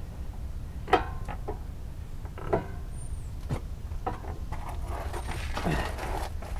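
Scattered metallic clanks and knocks of a ratchet and parts against the car's suspension and mount hardware, the loudest about a second in and again around two and a half seconds, over a steady low rumble.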